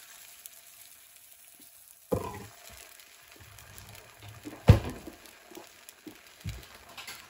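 Beaten eggs sizzling faintly in a hot nonstick frying pan. A short thump comes about two seconds in, a louder sharp knock near the middle, and then a few light knocks.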